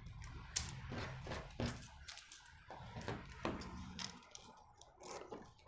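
Scissors cutting through thin pattern paper: a few faint, irregular crisp snips and paper crackles as the paper is handled on the cutting mat.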